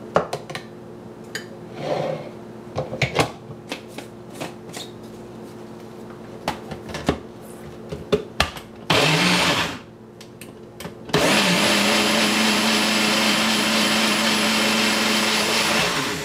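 Light knocks and clicks from handling the blender cup and fruit, then the personal blender runs in a short burst about nine seconds in, and about two seconds later it runs steadily for about five seconds, blending watermelon and berries with no added liquid, before it cuts off near the end.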